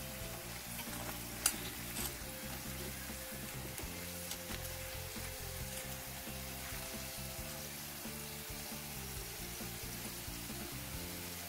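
Hot oil sizzling steadily as chicken meatballs deep-fry in a small electric deep fryer, cooking until dry and crisp. Metal tongs click a few times in the first seconds as the balls are turned.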